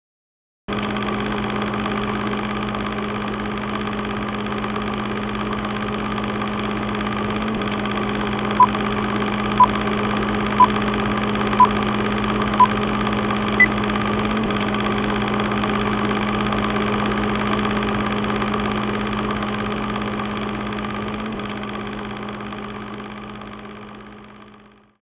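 Film projector running: a steady mechanical sound with a low hum that starts suddenly and fades out near the end. Partway through come five short beeps a second apart and then a sixth, higher beep, like film-leader countdown beeps.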